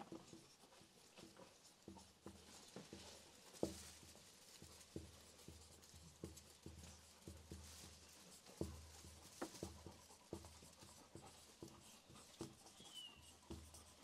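Felt-tip marker writing on a flipchart pad: faint, irregular strokes and taps of the pen, many with a soft low knock of the pad against its board.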